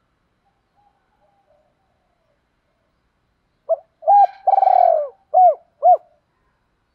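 Spotted dove cooing, starting about halfway in. One phrase of a short note, a long drawn-out note, then two short notes, each rising and falling in pitch.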